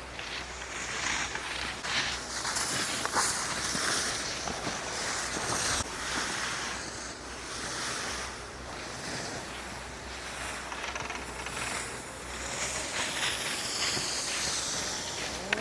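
Wind rushing over the microphone with the scraping hiss of sliding down a snow-covered ski slope, swelling and fading every second or two.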